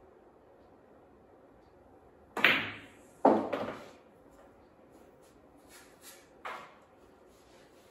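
Pool shot on a pool table: two sharp, loud ball knocks less than a second apart as the cue strikes and the balls collide, with the orange object ball going into a pocket, then three lighter clicks of balls a few seconds later.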